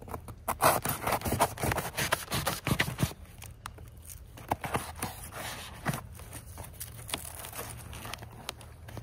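Scraping and crunching of a small hand knife cutting through cardboard mulch and digging into soil to make a planting hole for onions. Quick clicks and scrapes come thick for about three seconds, then only now and then.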